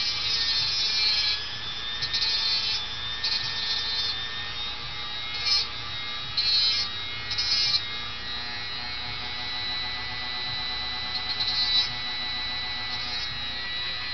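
Handheld rotary tool running with a steady high whine while the cut end of a steel screw is ground smooth against its spinning bit. The grinding comes in short, louder gritty bursts, several in the first eight seconds and once more near the end.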